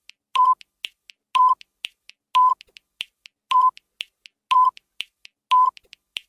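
Countdown timer sound effect: a short beep about once a second, with sharp ticks between the beeps.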